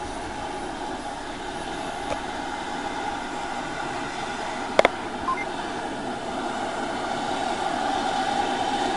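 Air ambulance helicopter running on the ground: a steady turbine whine with rotor noise that grows slightly louder toward the end. A sharp click sounds about five seconds in.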